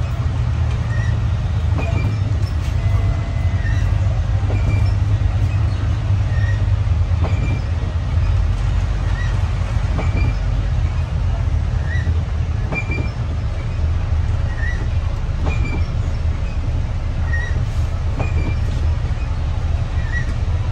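Steady low rumble of a moving vehicle, with faint short high chirps repeating about once a second.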